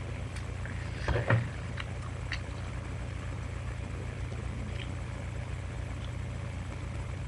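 Steady low electrical hum and hiss from a webcam microphone, with one brief louder sound about a second in.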